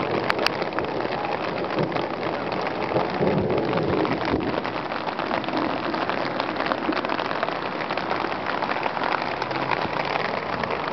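Steady rain falling: a dense, even patter of raindrops.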